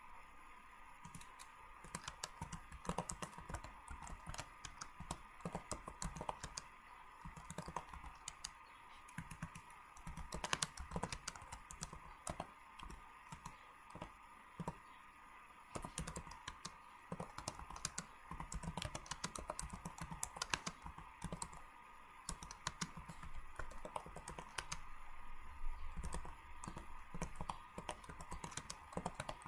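Typing on a computer keyboard: irregular runs of key clicks, over a faint steady hum.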